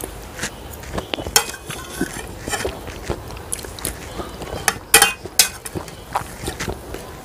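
Metal fork clinking and scraping on ceramic plates as the last scraps of food are gathered, with close-up eating sounds; the sharpest clinks come about five seconds in.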